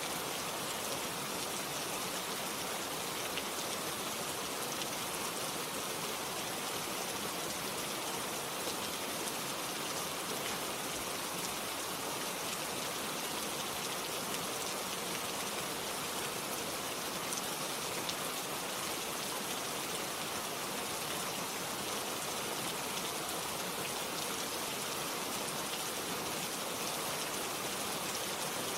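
Steady rain falling on a surface, with a constant hiss of many drops and faint scattered individual drop ticks.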